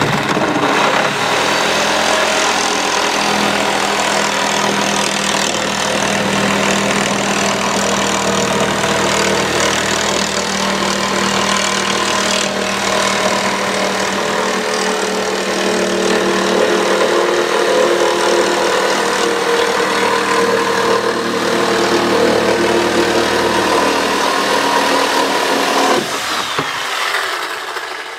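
Handheld electric power saw cutting through OSB sheathing, its motor running under load in one continuous cut that stops about 26 seconds in.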